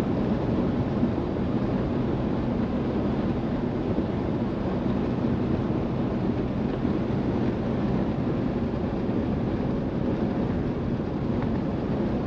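Ford F-150 pickup driving at highway speed, heard from inside the cab: a steady rumble of road, tyre and engine noise with some wind.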